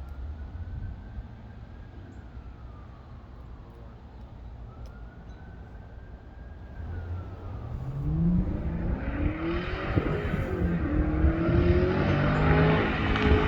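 A motor vehicle engine: a low rumble at first, then from about seven seconds in it rises in pitch and grows steadily louder, as if accelerating or approaching.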